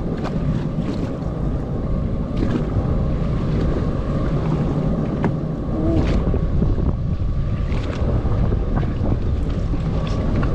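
Wind buffeting the microphone over choppy sea water slapping against a jet ski's hull, a steady rushing noise with a few light knocks.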